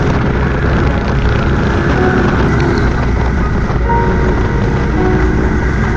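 Adventure motorcycle riding, its engine running under a steady, loud rush of wind on the microphone.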